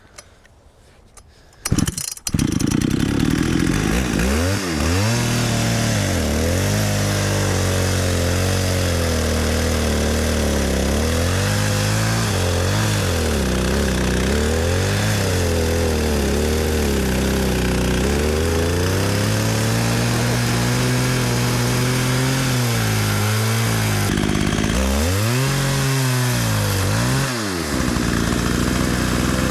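Chainsaw on an Alaskan chainsaw mill starting up about two seconds in, then running at full throttle while ripping a pecan log into slabs. Its engine speed repeatedly sags and recovers under the load of the cut.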